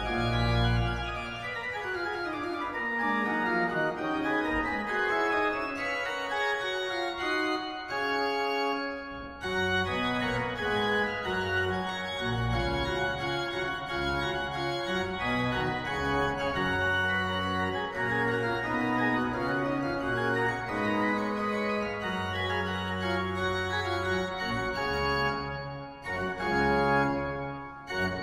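Pehr Schiörlin's 1785 pipe organ being played: a descending run in the first few seconds, then sustained chords over deep pedal bass notes, with a brief break about a third of the way in and another near the end.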